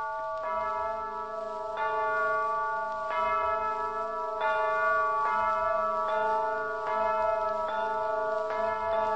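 Tuned bells pealing in a recorded opera score, one struck note after another, each ringing on under the next. The strikes are slow at first, about one every second and a half, then come quicker, roughly two every second and a half.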